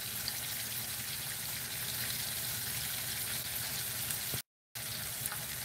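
Chicken fried steaks sizzling steadily in hot shortening in a cast-iron skillet. The sound cuts out for a moment about four and a half seconds in.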